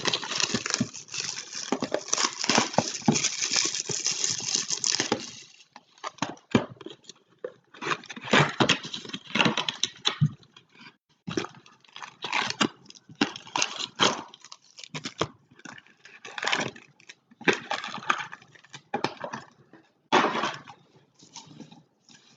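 Trading-card box and pack wrapping being torn open and crinkled: a dense crackle for about five seconds, then shorter crinkles and clicks of wrappers and cards being handled, coming and going.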